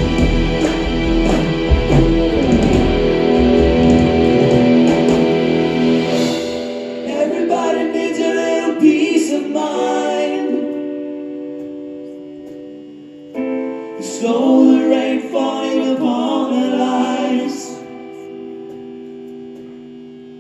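A live rock band playing an instrumental passage. Full band with bass and drums for the first six seconds, then it drops to a quieter section of sustained guitar and keyboard notes that softens toward the end.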